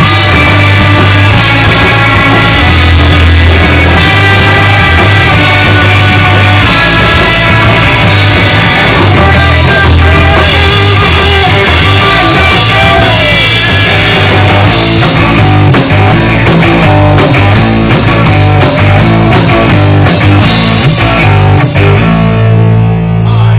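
Live instrumental rock band playing loud: electric guitars over a drum kit. About a second and a half before the end the cymbals drop out and low notes are left ringing.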